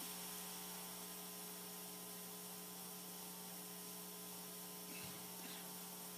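Faint, steady electrical hum with a buzzing stack of overtones, typical of mains hum in the recording or sound system.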